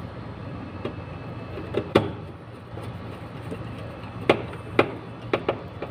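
Sharp plastic clicks and taps as wires are handled and pushed into the terminals of plug-in relay sockets on a DIN rail: one loud click about two seconds in, then four more between about four and five and a half seconds in, over a low steady hum.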